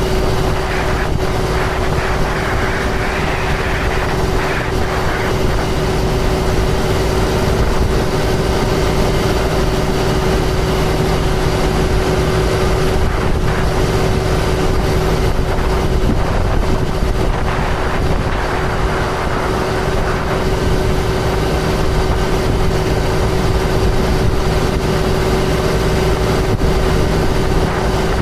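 A 2005 John Deere self-propelled sprayer running steadily under way: a constant engine drone with a steady hum and tone. Two short spells of added hiss come in, a few seconds in and again past the middle.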